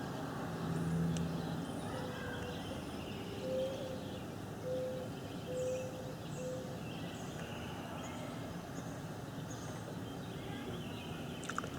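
Outdoor background noise with small birds chirping on and off, and a few short, low-pitched calls or honks about a second apart in the first half. No siren is sounding.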